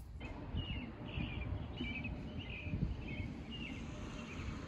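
A bird chirping over and over, about two short calls a second, over a low steady background rumble.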